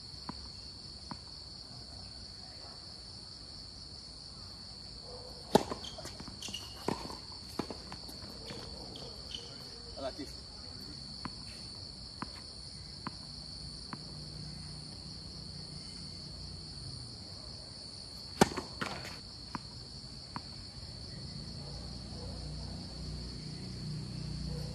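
Steady high-pitched chirring of night insects, with tennis balls struck by rackets and bouncing on a hard court in short sharp knocks, two clusters of them about five and eighteen seconds in.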